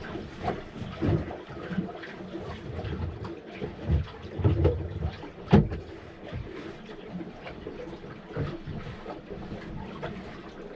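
Water sloshing against a small sailboat's hull, with irregular knocks and thumps; a few stronger thumps come around the middle.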